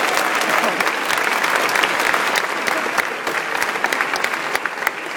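Large audience applauding, a dense sound of many hands clapping that slowly thins and quietens toward the end.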